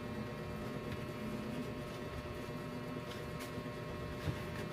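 Faint rustling and soft handling sounds of lumpia wrappers being rolled around vegetable filling by hand on plates, over a steady electrical hum, with one soft knock about four seconds in.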